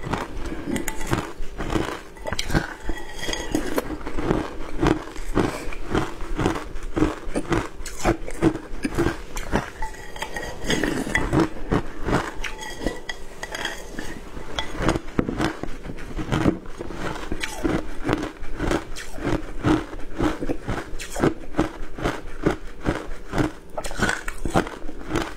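Matcha ice being crunched and chewed, picked up by a lapel microphone: dense, irregular sharp crunches, several a second, with clinks of a glass bowl.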